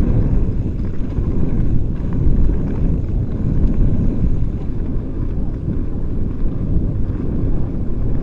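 Mountain bike riding fast along dirt singletrack: wind rumbling over the microphone and tyres rolling on packed dirt, a steady low rumble that wavers throughout.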